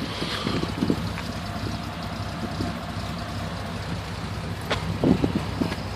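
Ford Cortina Mk5's 3.0 Essex V6 engine idling steadily, with wind buffeting the microphone about five seconds in.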